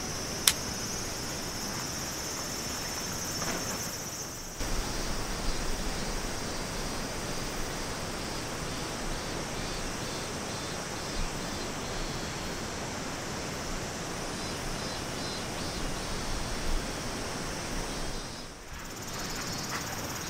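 Steady rushing of a river over rocks, an even, unbroken noise. A single sharp click about half a second in, and a high, thin hiss over the river noise for the first four seconds or so.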